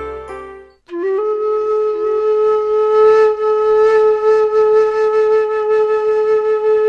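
Closing music: the earlier tune fades and breaks off just under a second in, then a flute comes in and holds one long note.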